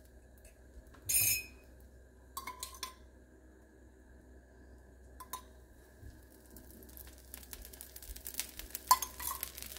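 A metal spoon clinks against a small steel oil cup several times, with a short hiss about a second in. From about six seconds in, a growing crackle of oil sizzling around an egg dosa on a hot iron tawa.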